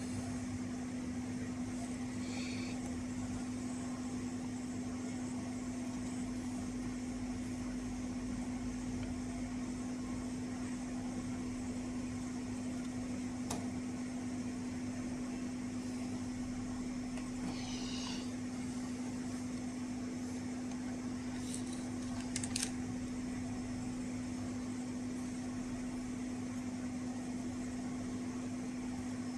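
Steady mechanical hum at one low pitch, with a few faint ticks and a pair of sharper clicks about three-quarters of the way through.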